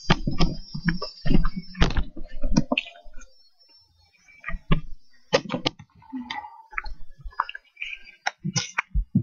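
Irregular thuds and knocks of someone running on a woodland path with a handheld camera jostling in hand, with a short lull about three seconds in.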